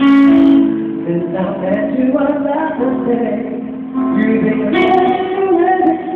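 Live band music: a male singer singing a slow ballad into a microphone over keyboard and guitar accompaniment.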